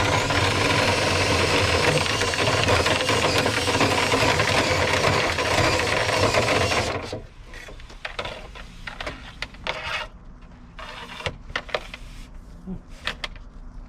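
A motor-driven vent-cleaning tool runs steadily inside a dryer duct, with rubbing and scraping, then cuts off suddenly about seven seconds in. Scattered light clicks and rustles follow.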